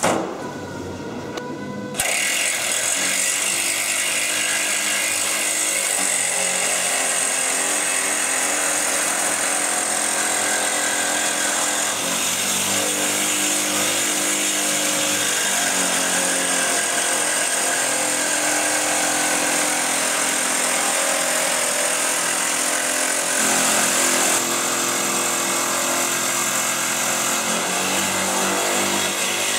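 Electric power tool switched on with a click, its motor spinning up, then from about two seconds in cutting steadily into metal with a loud, even noise whose pitch shifts a little as the load changes.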